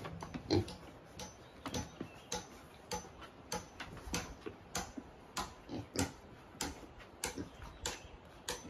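A steady series of sharp clicks, about three every two seconds.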